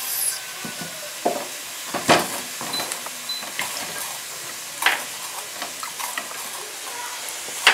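Vegetables being washed and cut by hand: scattered knocks and clicks, three of them louder than the rest, over a steady hiss.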